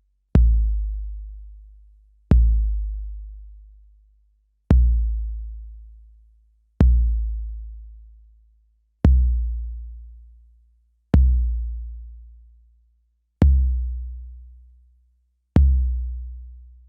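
Deep bass drum sample played back from an Akai MPC sampler, struck once about every two seconds: each hit starts with a sharp click and a long low boom that fades away before the next.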